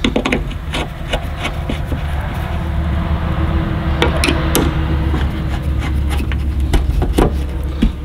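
Hands and tools working on a truck's luggage-door latch hardware: irregular clicks, knocks and scraping, a few louder knocks around the middle and near the end, over a steady low hum.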